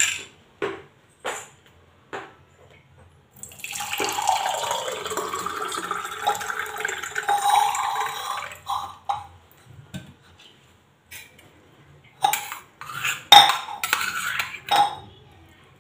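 Thick beetroot-carrot juice pouring from a steel bowl into a drinking glass for about five seconds. Before the pour come a few light knocks; after it, several sharp clinks and knocks of metal and glass as the bowl is handled and set down.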